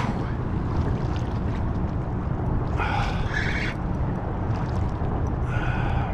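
Steady low rumble of wind on the camera microphone and choppy water lapping against a kayak hull. Two short rasps stand out, about three seconds in and again near the end.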